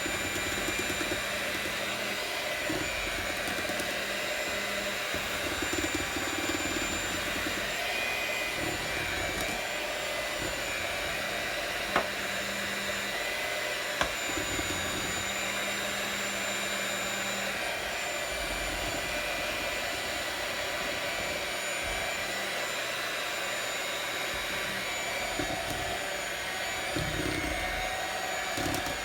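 Electric mixer running steadily with a whining motor, mixing flour into a thick cake batter, with two brief clicks near the middle.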